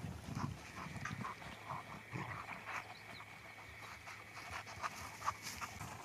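Dog panting softly, with scattered light rustles.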